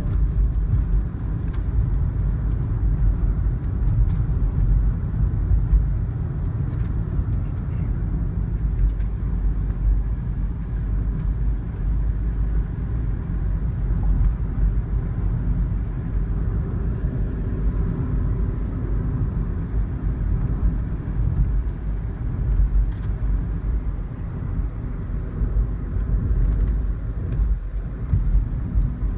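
Road noise of a moving car heard from inside the cabin: a steady low rumble of tyres and engine.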